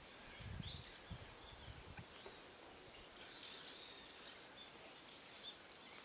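Faint outdoor ambience with scattered small bird chirps, bunched a little past halfway, and a few low bumps in the first second.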